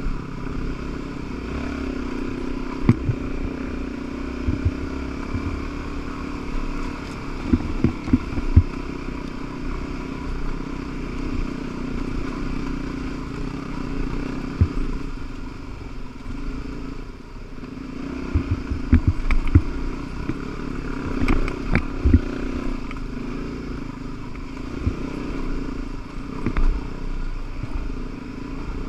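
Dirt bike engine running steadily at low trail speed, with sharp knocks and clatter as the bike rolls over rocks and ruts, bunched about a quarter of the way in and again about two-thirds of the way through.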